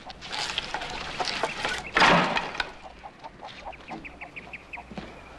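Hens clucking, with a loud squawk about two seconds in and a quick run of short clucks a little later.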